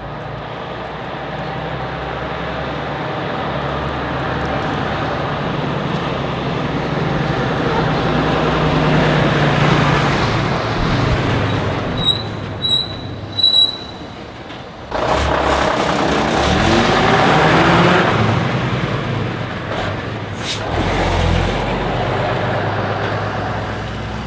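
Škoda 706 RTO bus's diesel engine running as the bus drives past, then rising in pitch as it accelerates away. Three short high beeps sound about halfway through.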